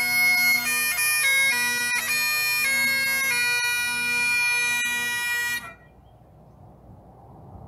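Bagpipes playing a tune over their steady drones; the tune and drones stop together about five and a half seconds in, leaving only a faint hiss.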